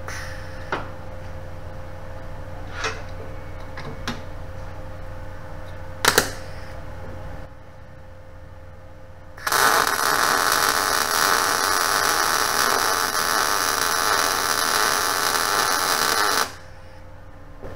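MIG 250 welder arc laying a bead on 3/8-inch steel: a steady, loud bacon sizzle that starts about halfway through, lasts about seven seconds and stops suddenly, the sound of an arc that is melting in well. Before it come a few sharp clicks and knocks.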